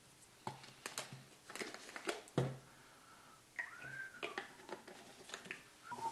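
Clicks and knocks of a small glass bottle being handled and opened. About halfway through, liquor is poured into a small shot glass, with a brief gliding tone as it runs in, and a few more glass clicks follow near the end.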